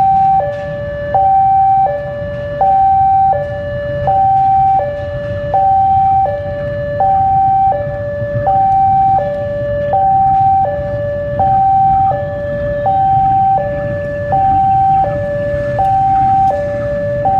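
Electronic two-tone warning alarm, alternating evenly between a higher and a lower note about every 0.7 s, over the low running rumble of a diesel locomotive moving slowly.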